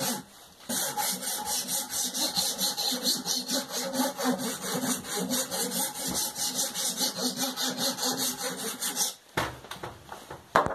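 A hand file rasping in rapid, even strokes across the dented metal of a petrol tank. It is shaving off the high points so the remaining low spots of the dent show up. The strokes stop about nine seconds in, and a single knock follows near the end.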